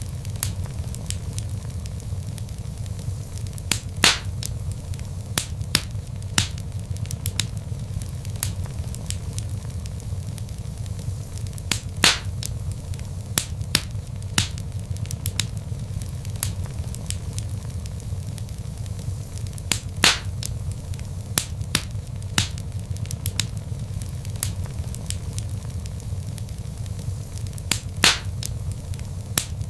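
Log fire crackling: a steady low rumble of flames with frequent sharp snaps and pops, the loudest coming about every eight seconds.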